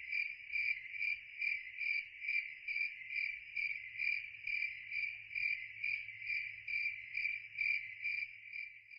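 Cricket chirping sound effect: a steady, even run of about two chirps a second, cut in over a silent pause as a comic 'crickets' gag.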